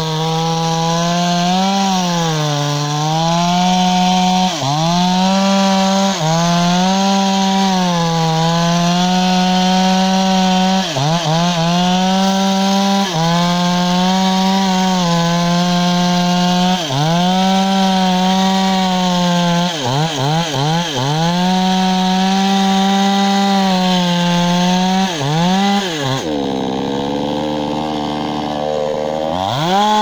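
Two-stroke gas chainsaw cutting through a tree trunk at full throttle, its engine pitch dipping briefly every few seconds as the chain bites into the wood. About four seconds before the end it drops to idle, then revs up again.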